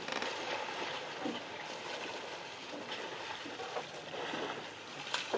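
African elephants splashing and sloshing water as they wallow in a muddy waterhole: an uneven wash of small splashes, with a sharper click near the end.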